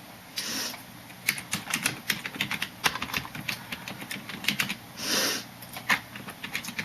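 Rapid, irregular clicks and taps, with two short hissing noises, one about half a second in and one about five seconds in.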